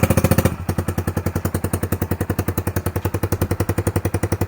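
Honda Grom MSX125's single-cylinder 125 cc four-stroke engine idling through a newly fitted aftermarket dual-outlet full exhaust, right after its first start: a loud, even train of exhaust pulses. It runs a little faster and louder for the first half second, then settles to a steady idle.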